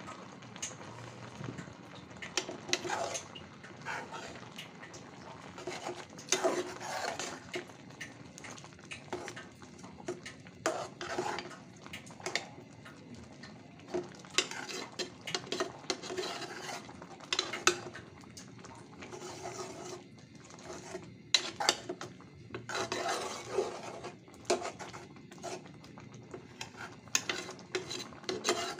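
A spoon stirring simmering lentils and spinach in a metal pot, with irregular clinks and scrapes against the pot's sides and bottom.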